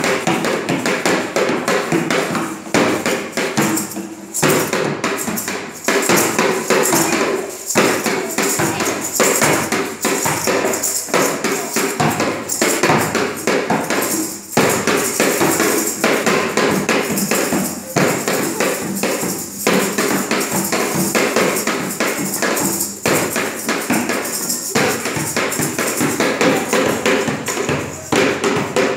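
Fast, continuous knocking of improvised percussion: hard plastic jerrycans struck on a concrete floor, with a few short breaks.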